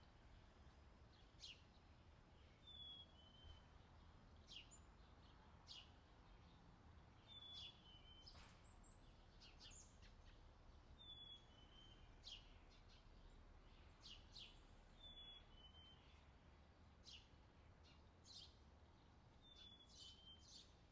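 Faint outdoor ambience of small birds chirping, with one bird repeating a short two-note falling phrase about every four seconds, over a low steady rumble.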